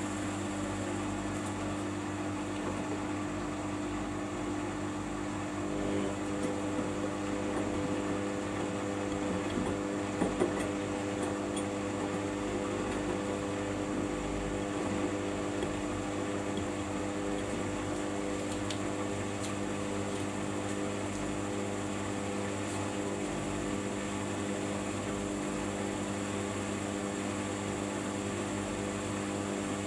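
Samsung front-loading washing machine running a quick wash cycle, its drum turning at a steady speed with a constant motor whine over a rushing hum, typical of the final spin near the end of the cycle.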